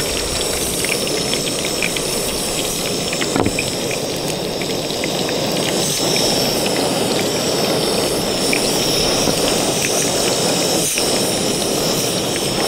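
Battered fish fillets sizzling and crackling in hot grapeseed oil in a frying pan on a gas canister camp stove, a steady hiss full of small pops. A few light knocks, the sharpest about three seconds in.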